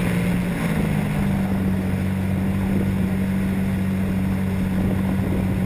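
Radio-controlled model airplane's motor running steadily in flight, heard from an onboard camera with wind rushing over the microphone; its pitch steps up slightly about half a second in.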